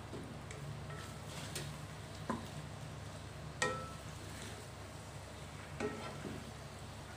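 Egg-coated tofu cubes frying in oil in a nonstick wok with a soft sizzle, stirred with a plastic spatula that scrapes and knocks against the pan several times, the loudest knock about three and a half seconds in.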